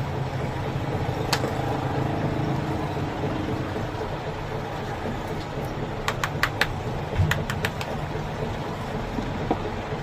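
Steady low mechanical hum with a run of sharp clicks about six to seven and a half seconds in.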